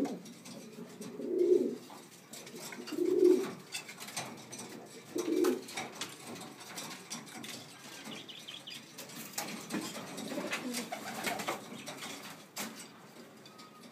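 Domestic pigeons cooing: three loud, low coos about every two seconds in the first half, then softer cooing with scattered light clicks.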